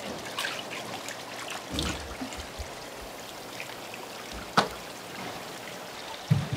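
Steady running and trickling water from live seafood tanks, with scattered splashes and clatters. There is a sharp knock about four and a half seconds in and a dull thump near the end.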